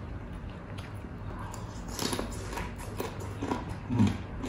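Close-miked eating sounds: chewing, lip smacks and small irregular clicks from people eating crispy pata with their hands, over a steady low hum. There is a louder low bump about four seconds in.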